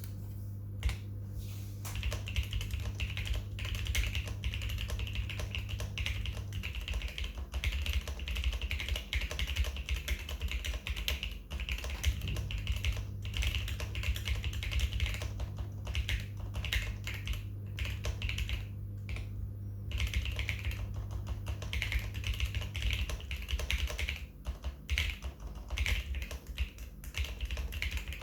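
Steady typing on a custom Sesame mechanical keyboard with lubed NK Cream switches, an FR4 plate with EVA foam between plate and PCB, and MT3 keycaps. A single keystroke comes about a second in, then continuous fast keystrokes from about two seconds in, with brief pauses.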